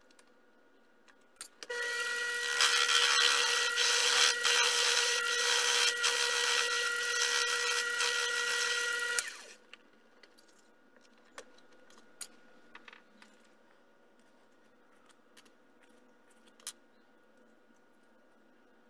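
A miniature metal lathe starts abruptly and runs for about seven seconds with a steady whine over a hiss, then stops. A few light clicks follow near the end as small metal parts are handled at the chuck.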